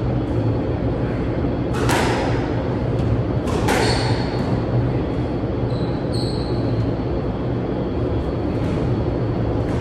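Squash ball struck hard twice, about two seconds apart, each crack echoing through the court, with a brief high squeak a few seconds later. A steady low hum runs underneath.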